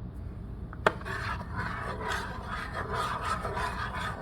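A utensil stirring glue-and-shaving-cream slime in a bowl, scraping and rubbing continuously against the bowl, with one sharp click a little under a second in.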